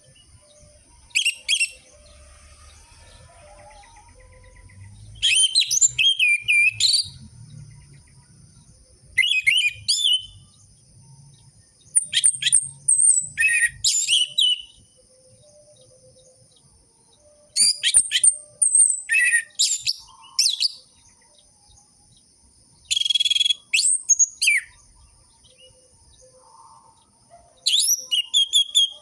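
Orange-headed thrush (anis merah) singing: short phrases of quick, gliding whistles and chattering notes, each a second or two long, repeated with pauses of two to three seconds between them.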